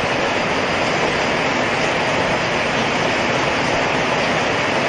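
Heavy rain falling steadily, a loud, even rushing noise with no break.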